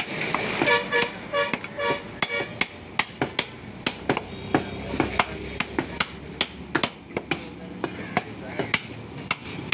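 Heavy cleaver chopping beef on a wooden log chopping block: sharp knocks at irregular intervals, about two a second.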